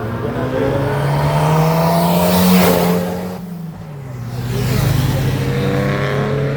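A car engine revving hard, its pitch climbing for a couple of seconds, then dropping away about three seconds in, then coming back up and holding high and steady.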